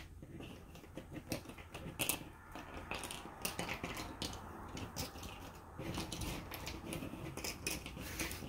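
Cardboard jigsaw puzzle pieces clicking and rustling as hands sift through loose piles and press pieces into place: a faint, irregular scatter of small clicks.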